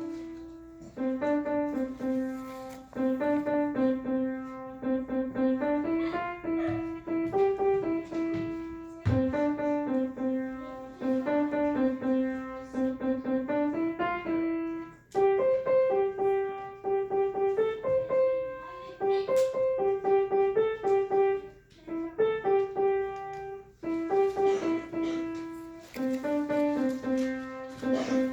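Piano music: a simple melody played in short phrases of separate notes, with brief pauses between the phrases.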